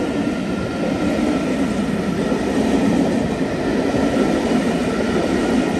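Pullman passenger coaches rolling past on the rails: a steady rumble of wheels on track, with a faint high tone running above it.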